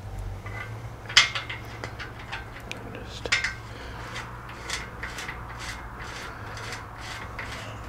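Metal-on-metal clinks and taps of tools and parts as a motorcycle swing arm's pivot bolt is fitted into the frame: two sharp clinks a couple of seconds apart, then a run of lighter clicks about three a second.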